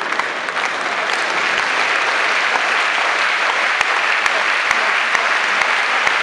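Large tennis-stadium crowd applauding steadily, a dense wash of handclaps with single sharp claps standing out.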